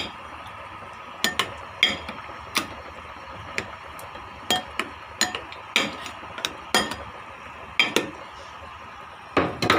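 Kamyas (bilimbi fruit) being smashed with a kitchen utensil: irregular sharp knocks, about sixteen in all, some in quick pairs, to crush the fruit and release its sourness.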